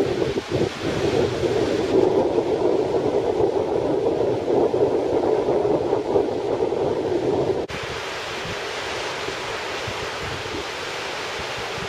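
Strong wind buffeting the microphone in gusts over the wash of breaking surf. About two-thirds of the way through it cuts off suddenly to a steadier hiss of surf and wind.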